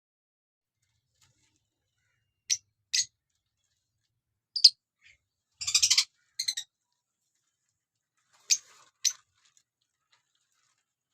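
Lovebirds giving short high-pitched chirps: a few single calls, with a quick run of several in the middle.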